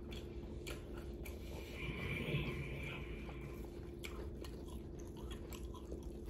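Close-up chewing and biting of Hawaiian barbecue short ribs: irregular small clicks and mouth sounds from eating, over a faint steady hum.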